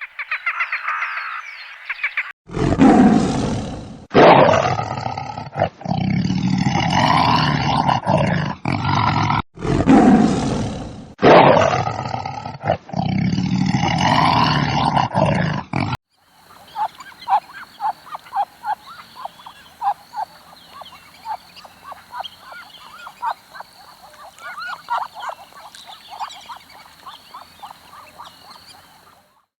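A run of different animal calls, one clip after another: several loud calls with sudden cuts between them in the first half, then a long stretch of quick, rhythmic chirping.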